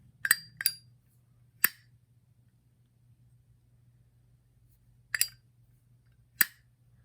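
Brass Zippo lighter lid clinking open and snapping shut: five sharp metallic clicks, two close together near the start, one a second later, then two more near the end.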